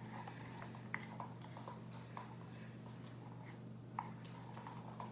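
Faint scattered clicks and light sticky sounds of glue and laundry-detergent slime being stirred in a bowl, over a steady low hum.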